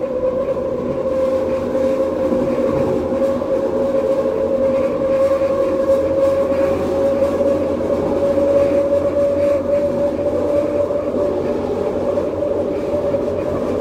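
Linear-induction-motor metro train running along an elevated guideway: a steady motor whine that rises slightly in pitch over the stretch, over the constant running noise of the wheels on the rails.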